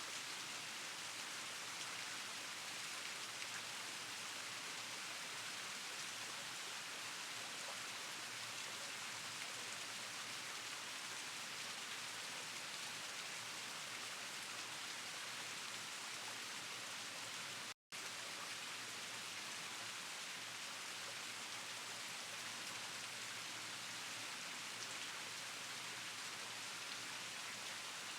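Steady, even hiss with no bird calls in it, broken by one split-second dropout about two-thirds of the way through.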